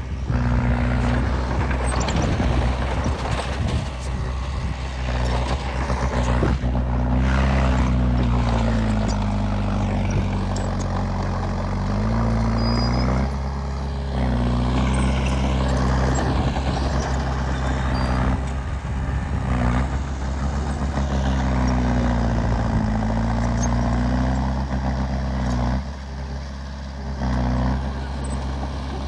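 Diesel engine of heavy earthmoving machinery working under changing load. Its pitch sags and climbs back up twice, with scattered knocks and rattles over it.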